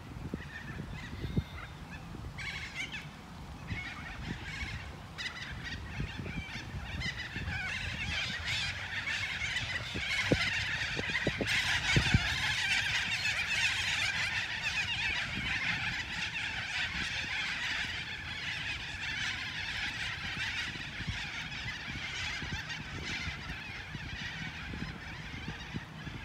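Many birds calling at once, a dense chattering chorus that swells towards the middle and then eases off, over a steady low rumble.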